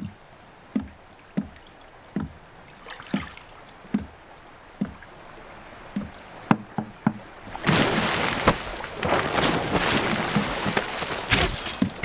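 Heavy footsteps thudding on wooden bridge planks overhead, about one a second with a few quicker ones. About eight seconds in, a sudden loud, dense rush of noise full of sharp knocks takes over.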